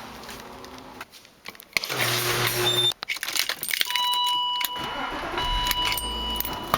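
Car keys jangling as someone gets into a car, then from about four seconds in a steady high electronic tone from the car's warning chime.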